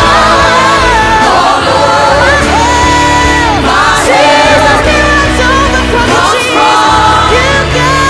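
Live contemporary worship band with singers, playing a worship song. Voices hold long notes over a steady bass line.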